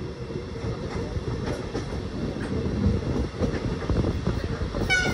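Casaralta MDVC passenger coach running at speed, heard from inside: a steady rumble of the running gear with wheels clicking over rail joints. A brief high squeal comes near the end.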